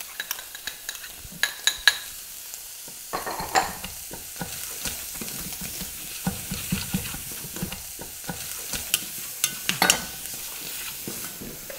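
Diced bacon and onion sizzling in oil in a saucepan while being stirred with a spoon, the frying growing fuller about three seconds in. Scattered sharp clicks of the spoon on the pan and a knife chopping on a wooden board run through it.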